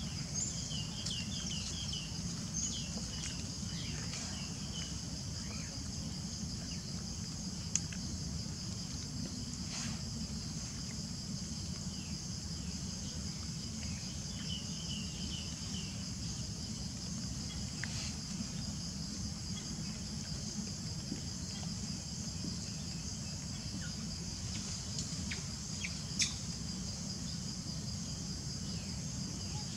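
Steady high-pitched drone of insects, crickets or cicadas, over a low steady rumble of background noise, with a few short chirping calls and occasional light clicks.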